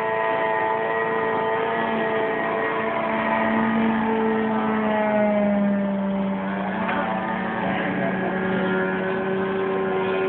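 Radio-controlled model airplane's motor running steadily in flight, its pitch sliding down a little about six seconds in.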